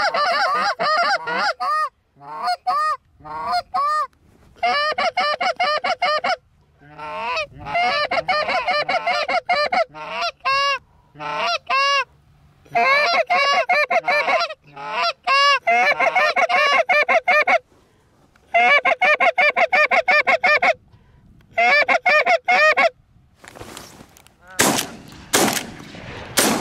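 Canada goose honks and clucks in fast runs of a second or two, with short pauses between runs. A few short rushing noises come near the end.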